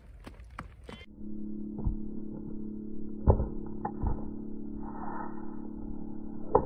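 A ridden horse's hooves thudding on dirt as it canters over low hay bales: a few heavy, irregular hoofbeats, the loudest about three seconds in, over a steady low hum.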